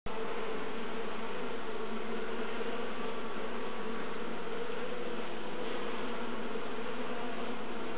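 Honeybee colony humming: the steady, even buzz of a dense mass of worker bees crowded around their queen on an open hive frame, the workers agitated as she breaks down a queen cell.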